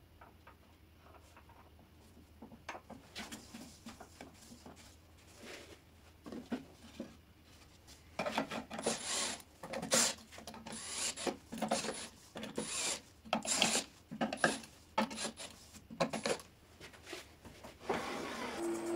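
Wood rubbing and scraping with small knocks as a wooden workpiece is handled and seated on a wood lathe. About eight seconds in it gets louder: a run of short, irregular scraping strokes, one or two a second.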